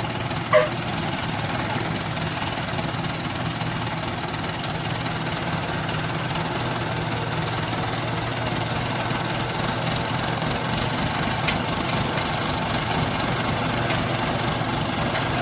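Diesel engine of a hydra crane running steadily under load while it holds and tows a combine harvester. About half a second in there is one short, loud, high-pitched toot.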